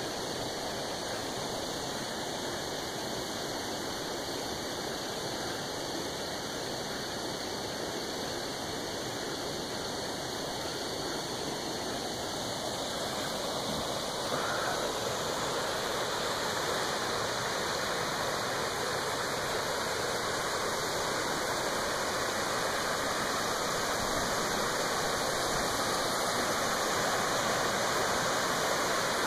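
Steady rush of a stream running over rocks and small cascades, growing a little louder about halfway through.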